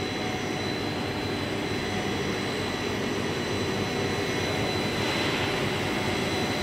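Twin-screw plastic sheet extruder line running: a steady mechanical hum and hiss with a thin, high, constant whine.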